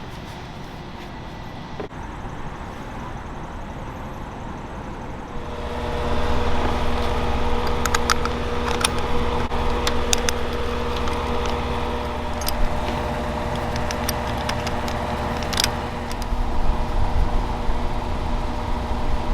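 A machine starts about five and a half seconds in and runs steadily, a low rumble with a steady hum over it. Scattered clicks and taps sound over the running machine.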